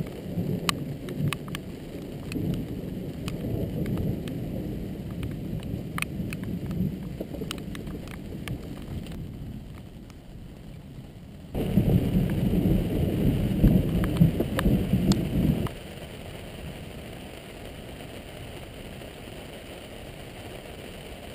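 Thunder rumbling low during a thunderstorm, with rain and sharp raindrop ticks. The rumble fades over the first half. About halfway a louder burst of rumbling starts abruptly and cuts off suddenly some four seconds later, leaving a steady rain hiss.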